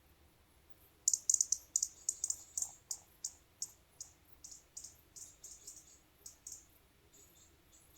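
A rapid series of short, high, sharp chirping calls from a small animal, about three or four a second. They start abruptly about a second in, are loudest at first, then thin out and fade toward the end.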